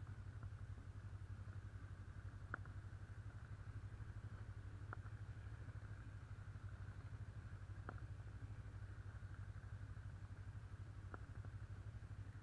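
Honda CB 500 parallel-twin engine running with a steady low rumble at an even, unchanging pitch. A few faint sharp clicks come every two to three seconds.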